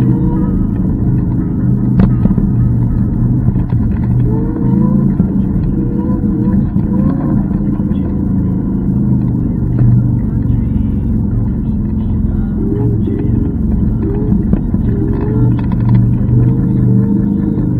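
Steady rumble of wind and road noise on the microphone of a moving e-scooter, with faint wavering tones over it.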